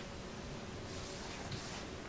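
Quiet room tone: a steady low hiss with a faint, steady hum, and one faint soft noise about one and a half seconds in.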